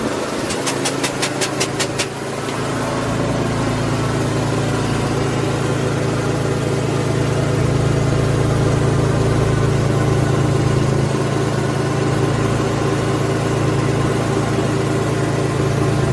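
Engine of a large farm machine running steadily at idle. A quick run of about eight sharp clicks sounds near the start.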